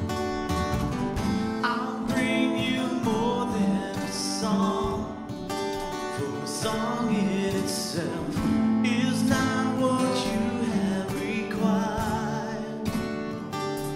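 Live worship band playing a song: strummed acoustic guitar and electric guitar over percussion, with voices singing the melody.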